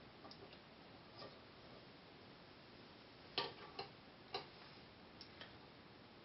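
Faint scattered clicks and light taps from small parts and wires being handled at a helping-hands clamp, about seven in all, the loudest about three and a half seconds in, over a low hiss.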